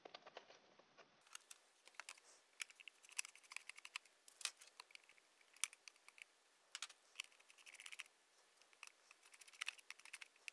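Small screwdriver turning out screws on the back of an Apex display module's plastic case, with handling of the unit: faint, irregular clicks and light scrapes, more frequent from about a second in.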